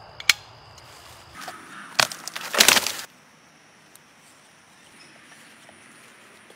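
Dead tree wood cracking and splintering: a sharp snap about two seconds in, then a loud crackling break for about half a second that stops abruptly.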